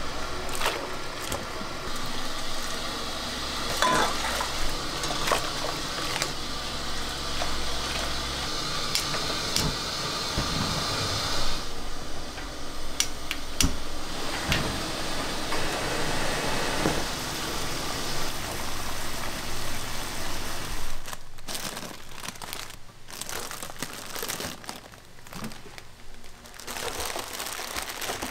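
Kitchen work sounds: pots and dishes clinking and knocking over a steady rushing noise, which drops away about three quarters of the way through, leaving quieter scattered clatter.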